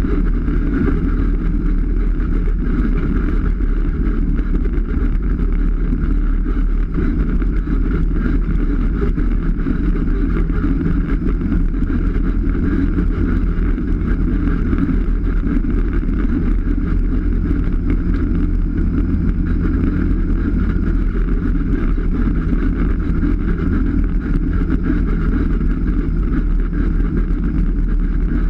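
Polaris RZR 570 side-by-side's single-cylinder four-stroke engine running at a steady pace while driving along a dirt trail.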